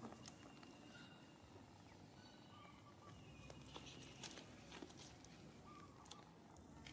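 Near silence: faint outdoor ambience with a few short, faint high chirps and scattered small clicks.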